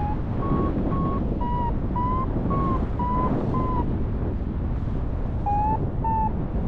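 Paragliding variometer beeping short, even tones near 1 kHz, about two a second, the beeper's signal that the glider is climbing in lift. The beeps stop for a moment around the middle and come back twice near the end. Steady rushing wind on the microphone lies under them.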